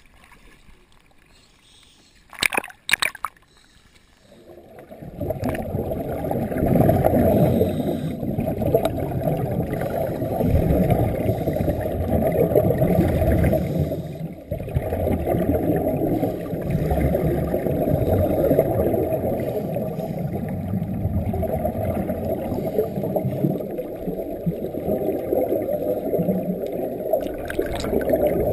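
Muffled underwater water noise picked up by a submerged camera, a dull continuous rushing and gurgling with nothing above the low end. It comes in about four seconds in, after a couple of sharp splashes at the surface, and dips briefly about halfway through.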